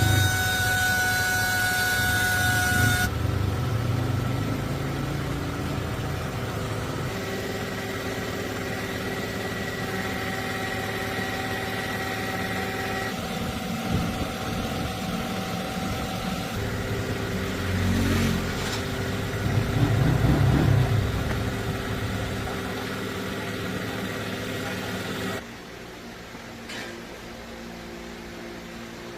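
An engine or motor running steadily, with two louder low swells about eighteen and twenty seconds in. The sound drops off abruptly near the end.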